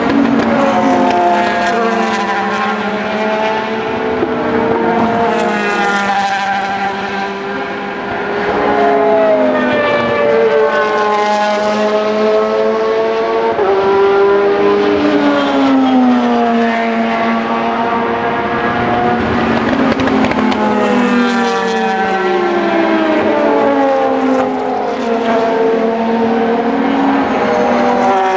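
Several endurance race cars, prototypes and GT cars, passing one after another at speed, their engines overlapping. The engine notes keep rising and falling as each car changes gear and goes by.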